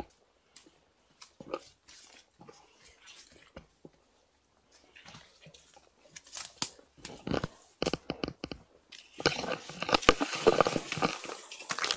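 Corn leaves and stalks rustling and crackling as someone pushes through a cornfield, brushing close past the microphone. Soft, scattered rustles and clicks build to a dense, loud crackling in the last few seconds.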